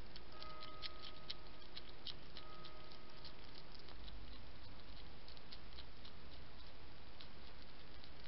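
European hedgehog eating dry food: its chewing makes a quick, irregular run of small crunching clicks over a steady hiss, thicker in the first few seconds.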